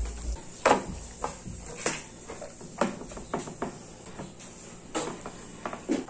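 Large kitchen knife chopping raw chicken into pieces on a cutting board: irregular sharp knocks of the blade striking the board, about one every half second to a second.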